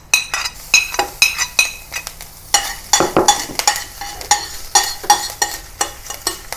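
Minced garlic and ginger sizzling in hot oil in a stainless steel pan, stirred with a metal spoon. The spoon clinks and scrapes against the pan many times at an irregular pace.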